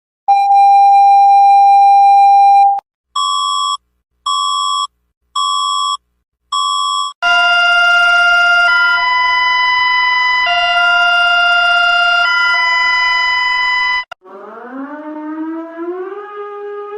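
Electronic emergency-alert alarm tones: a steady tone for about two and a half seconds, then five short beeps about one a second, then a loud multi-note chord whose notes switch back and forth every second or two. About two seconds before the end, a siren starts winding up, rising in pitch with a wavering climb.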